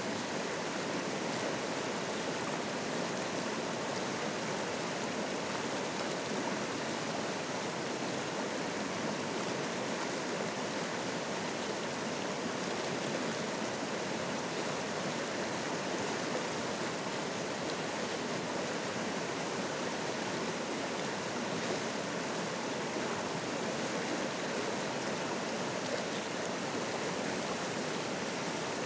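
Fast mountain river in spring flow rushing over rocks and rapids, a steady, unbroken roar of white water.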